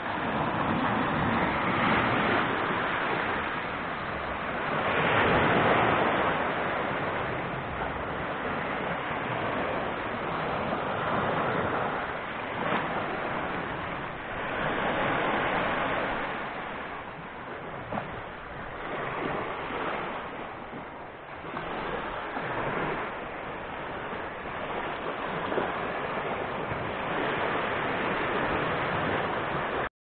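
Small sea waves breaking and washing up a pebble beach, the surf swelling and fading every few seconds.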